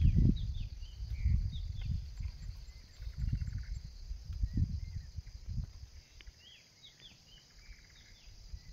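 Low rustling and bumping from handling a snared hare and its wire snare, fading out after about six seconds. Behind it, crickets trill steadily and a bird gives short, falling chirps.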